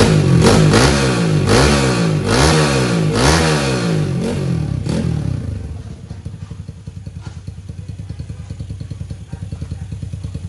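Bare, open-class ('tự do') motorcycle engine on a test stand, run through a long straight exhaust, blipped up and down on the throttle about once a second with light revs, then dropping back to a steady pulsing idle about five seconds in.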